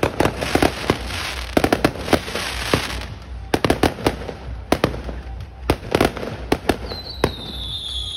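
Aerial fireworks going off: many sharp bangs at irregular intervals, some in quick crackling clusters. Near the end, a high whistle falls slightly in pitch.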